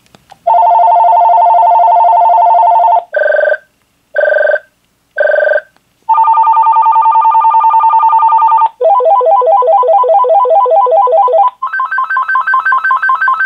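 VTech VG-101 cordless handset's speaker playing its different ringer tones loudly, one after another: a steady warbling ring, three short rings, another steady ring, then a fast trilling ring and, near the end, a higher trill.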